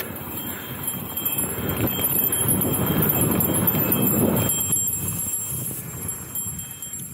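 2013 Specialized S-Works Enduro 26 mountain bike riding a dirt trail: tyre noise on dirt with the bike rattling. The noise builds to its loudest around the middle and eases off after about four and a half seconds.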